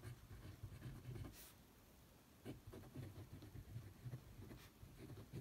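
Faint scratching of a Kaweco Brass Sport fountain pen's nib writing on Tomoe River paper, with a brief pause about two seconds in.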